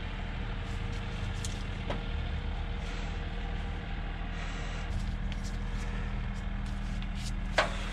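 A steady low mechanical hum of a motor running in the background, with two short clicks from hand tools working at a carburetor, one about two seconds in and one near the end.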